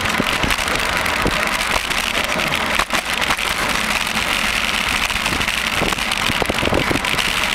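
Steady city street noise heard from a moving bicycle: car engines running nearby over a constant rush of noise, with a few small knocks.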